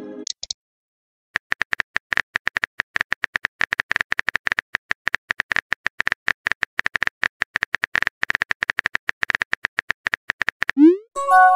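Simulated phone-keyboard typing sounds from a texting-story app: rapid, irregular short clicks as a message is typed letter by letter. Near the end a short rising swoop and a brief chime sound as the message is sent.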